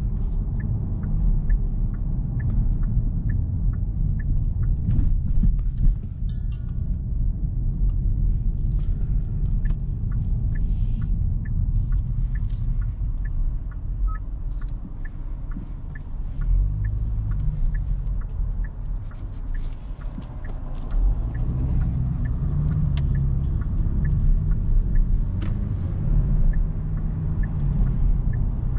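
Cabin sound of a Genesis G70 Shooting Brake driving through town: low rumble of the 2.0-litre turbo four-cylinder and tyres, with a light, evenly spaced ticking. A thump about six seconds in, and the engine note rises twice in the second half as the car pulls away.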